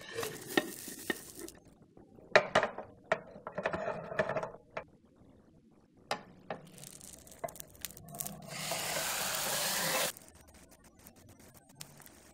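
Clicks and clatter from a portable gas stove and pan being handled, then a steady sizzle of the tofu omelette frying in the pan for about three seconds that cuts off suddenly.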